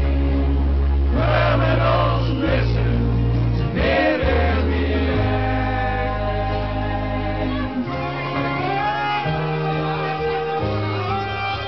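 A slow song with long held chords, and a group of people singing along in chorus.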